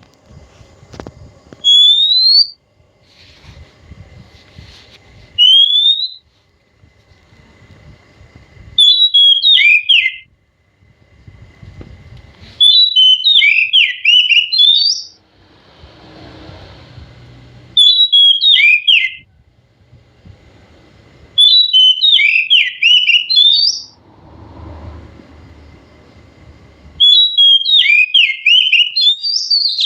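Oriental magpie-robin (kacer) singing. It opens with two short rising whistles, then sings loud, varied, warbling phrases of a second or two, repeated about every four seconds over a faint steady high tone.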